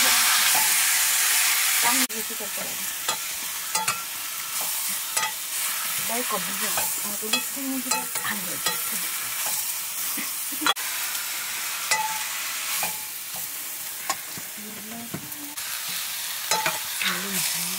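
Metal ladle stirring and scraping sliced potatoes and greens in a black iron pan while they sizzle over a wood fire. A loud sizzle in the first two seconds drops away suddenly, then a softer sizzle carries on under scattered scrapes and clinks of the ladle against the pan, with one sharp knock about halfway through.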